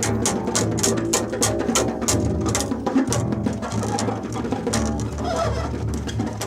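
Improvised noise music played on recycled found objects: a low sustained drone under rapid, even clicking strikes at about four a second, which thin out about halfway through.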